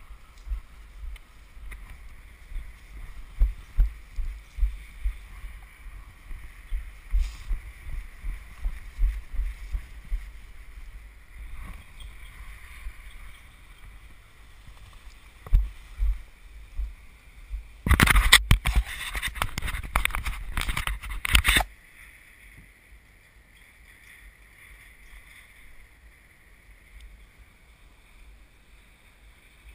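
Wind buffeting a body-worn camera's microphone in gusts, with low thumps, then a loud rush of wind noise for about four seconds from around eighteen seconds in, settling to a faint steady hiss.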